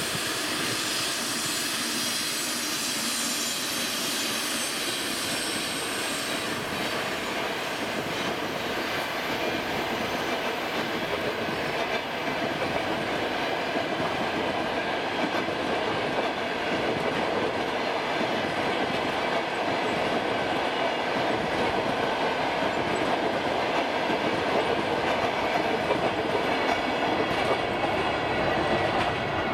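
EP2K electric passenger locomotive passing with a steady high whine that fades over the first several seconds, followed by a long train of passenger coaches rolling by, wheels clattering over the rail joints and growing slightly louder toward the end.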